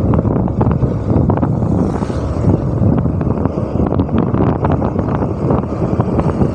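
Wind buffeting the microphone of a motor scooter on the move, a loud, constantly fluttering rumble over the scooter's engine and tyre noise.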